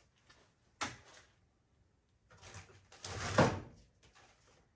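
Handling noises of a workbench: a sharp knock about a second in, then a rough scraping rustle that swells and dies away over about a second and a half.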